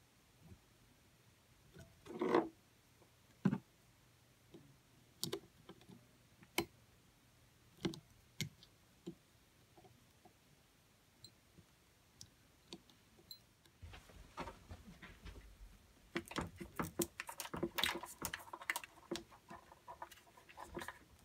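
Scattered small clicks and taps of hands and needle-nose pliers working push-on terminal adaptors on the terminals of a small sealed battery. The clicking and rattling grows busier from about two-thirds of the way in.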